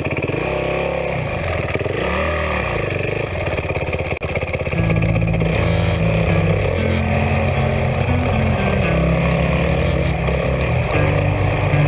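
Dirt bike engine running close by. It rises and falls in short revs at first, then gets louder about five seconds in as the bike pulls away, its pitch holding and then jumping in steps.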